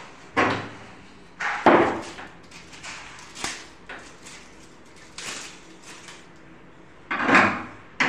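Knocks and clunks of metal gas-lift struts being handled and fitted to a storage bed's lift hinge, with a few loud knocks and smaller clicks between them.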